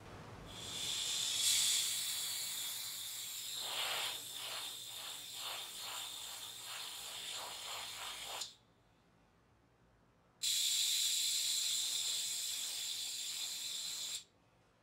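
Airbrush spraying paint in two long hissing bursts with a short pause between. Partway through the first burst the hiss pulses a couple of times a second.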